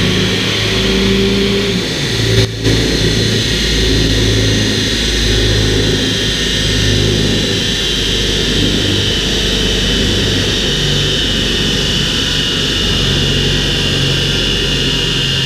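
VW T4 van's turbodiesel engine held at high revs under load on a rolling road, its wheels driving the dyno rollers, with a steady high whine over the engine note. The sound breaks off briefly about two and a half seconds in, then carries on steadily.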